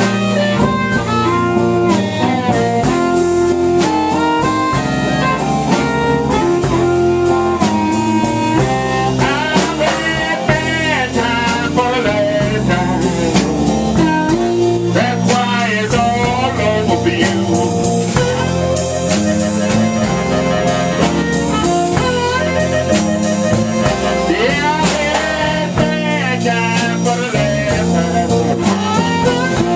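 Live band playing a blues tune: electric bass and a drum kit keeping a steady cymbal beat under a lead melody of bending, wavering notes.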